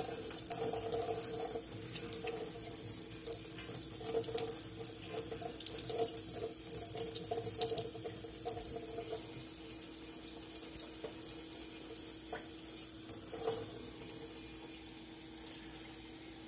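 Kitchen faucet running into a stainless steel sink, the stream splashing over a whole raw shrimp held under it to rinse it. It is louder for roughly the first eight seconds, then quieter, over a steady faint hum.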